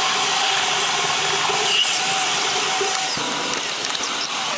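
Steady cockpit noise of an Embraer 190 taxiing with its engines at idle: an even hiss with a few faint steady tones underneath.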